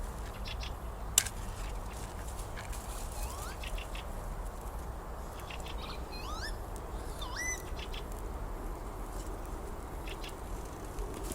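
Bird chirping: a few short, rising calls in the middle, over a burning wood campfire crackling, with a sharp pop about a second in.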